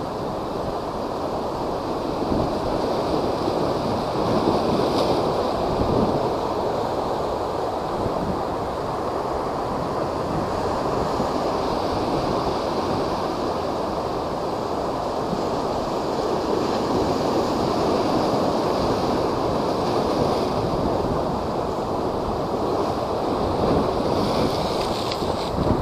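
Rough typhoon-driven surf and strong wind: a continuous heavy rush of water and wind that swells a little now and then, with wind buffeting the microphone.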